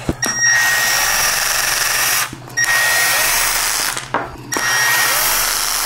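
Cordless drill with a long Phillips bit running in three short spells, each starting with a steady whine, backing out the screws that hold the end cap on a metal e-bike battery case.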